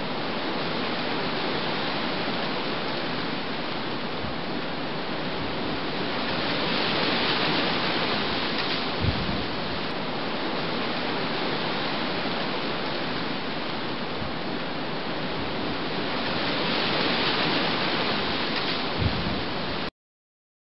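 Storm wind and rough sea, a steady loud rushing noise with two brief low thumps. It cuts off suddenly shortly before the end.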